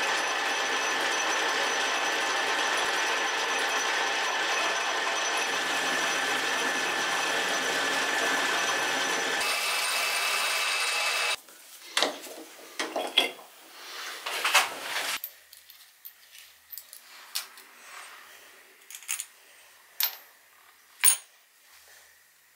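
Metal lathe running steadily, turning a part held in a three-jaw chuck under a cutting tool, until it stops about eleven seconds in. Then come metal clinks and knocks as the chuck and workpiece are handled, and a few faint clicks.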